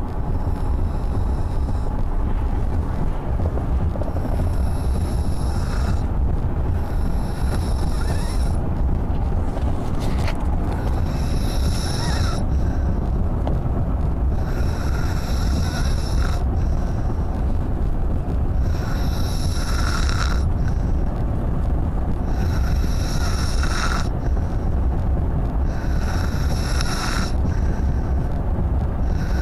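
Rhythmic snoring, one breath about every three and a half seconds, each with a high whistling tone, over a steady low rumble.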